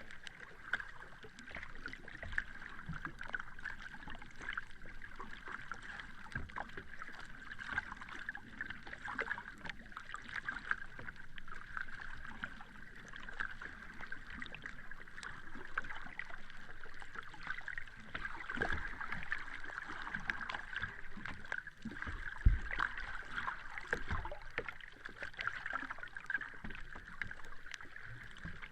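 Sea water lapping and splashing: a steady wash of small splashes, with a few deeper slaps, the loudest about three-quarters of the way through.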